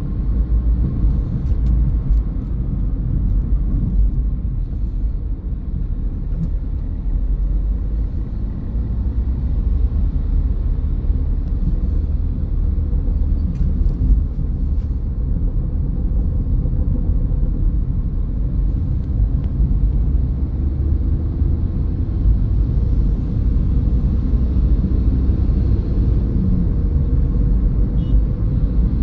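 Steady low rumble of a car on the move: road and engine noise.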